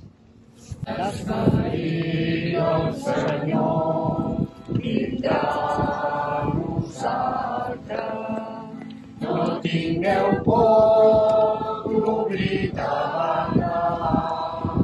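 A group of people singing a hymn together, accompanied by strummed acoustic guitars. The singing comes in about a second in, after a brief pause between phrases.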